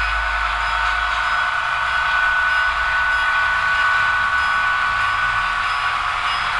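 HO-scale model train of four diesel locomotives pulling tank cars, running steadily along the track, with a steady high whine over a constant running noise.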